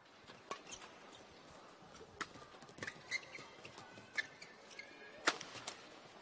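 Live court sound of a men's doubles badminton match: sharp racket strikes on the shuttlecock, the sharpest about five seconds in, and short squeaks of shoes on the court mat, over the low hum of the sports hall.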